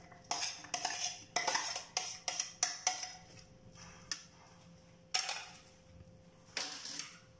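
Metal spoon scraping and clinking against plates as diced onion is scraped off one plate onto another: a quick run of short scrapes over the first three seconds, then two more single scrapes later on.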